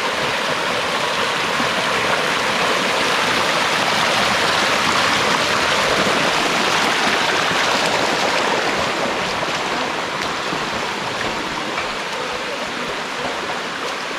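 Waterfall water rushing steadily over limestone cascades, a little louder in the middle and easing toward the end.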